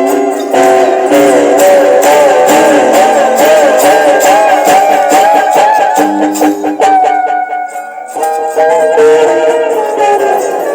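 Guitar played with tremolo and slides: fast, rapidly repeated picked notes whose pitches waver and glide up and down. The playing eases briefly about eight seconds in, then picks up again.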